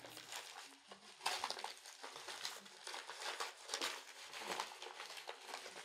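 Paper packaging crinkling and rustling in faint, irregular bursts as a package is unwrapped by hand.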